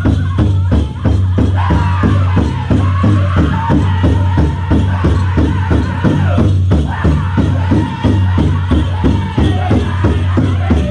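Powwow drum group playing a chicken dance song: a big drum struck in a fast, steady beat by several drummers, with high, held voices singing over it.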